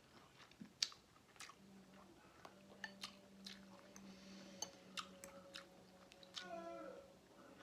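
Close-miked mouth sounds of eating: chewing with wet lip smacks, heard as scattered sharp clicks at irregular intervals. A short falling tone comes near the end, over a faint steady hum.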